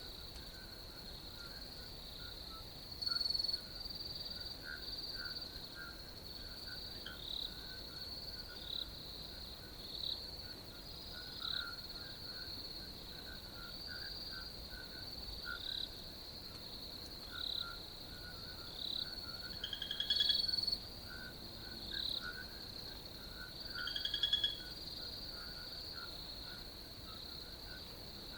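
Night chorus of crickets and frogs: a continuous high-pitched cricket trill under many short, scattered chirps, with a few louder rapid trilling calls standing out, one near the start and two later on.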